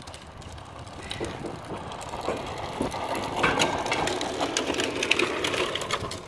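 Back Rack metal headache rack rattling and scraping against the pickup's bed rails as it is shifted to line up its mounting holes: a dense run of small metallic clicks and scrapes that grows louder after the first second or so.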